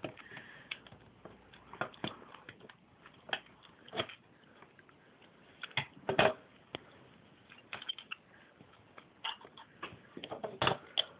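Plastic Lego pieces being handled and pressed together: scattered, irregular sharp clicks and taps.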